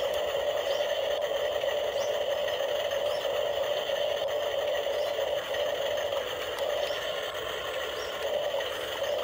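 Toy RC excavator's electric motors and gearboxes whirring steadily as it works its arm and tracks.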